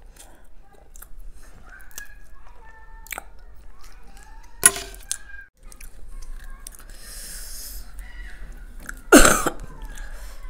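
Close-miked eating sounds: chewing, with a spoon clinking against a steel bowl. There are a few sharp clicks, and a louder knock about nine seconds in.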